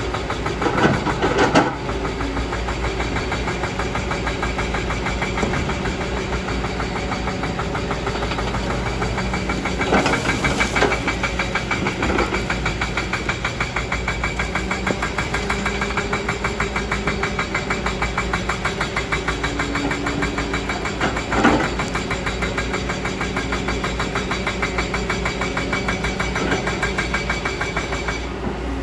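Kobelco excavator's diesel engine running steadily with a fast, even pulse, with a few brief louder surges as the machine works: about a second in, around ten seconds in and again about 21 seconds in.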